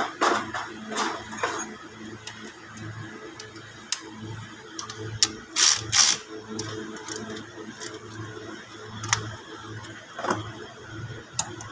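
Scattered metallic clicks and knocks of tools and parts being handled, loudest in a quick cluster about halfway through, over a faint low hum.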